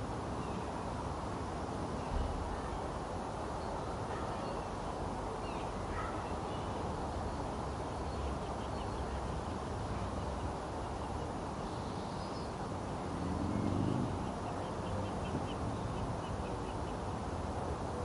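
Garden ambience: a steady low background noise with small birds chirping faintly now and then, including two short runs of quickly repeated notes. A brief low swell rises and fades about two-thirds of the way through.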